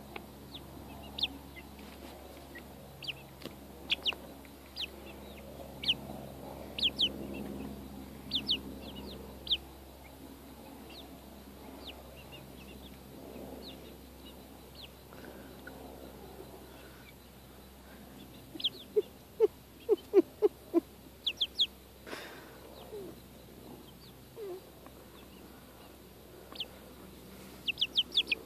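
Young chickens peeping: short, high, falling chirps scattered throughout, with a quick run of louder chirps and some lower clucks about two-thirds of the way in.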